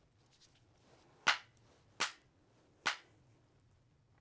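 A rusty iron cannonball smacked three times against an aluminium-foil-wrapped cannonball in glancing blows: three sharp cracks, less than a second apart. The cracks come from a small thermite reaction set off between the rust and the aluminium foil.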